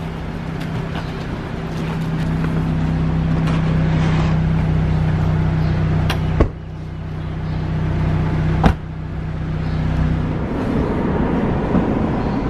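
Car engine running with a steady low hum, with a sharp knock about six and a half seconds in and another about eight and a half seconds in. The hum stops about ten seconds in.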